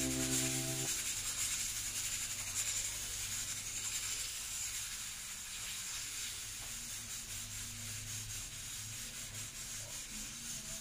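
Steady hiss from a pressure cooker cooking on the stove, with a faint low hum underneath. Music fades out in the first second.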